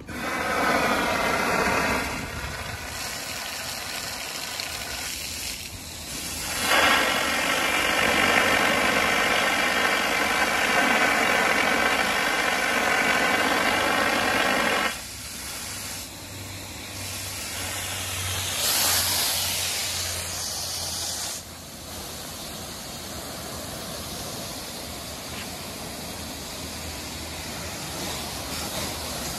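Water flowing hard from a HEN bladed-pattern fire hose nozzle at 160 gpm and 50 psi: a steady rushing spray with a whine over it, opening at once, loudest at first and again for about eight seconds from around seven seconds in, then settling to a quieter steady rush.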